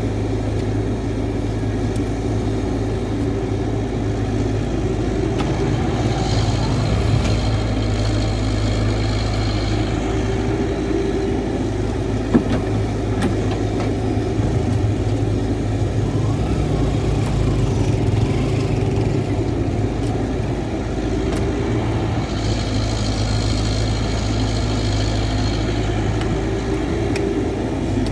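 Caterpillar 312 hydraulic excavator's diesel engine running steadily while digging, with a higher whine coming in twice and one sharp knock about twelve seconds in.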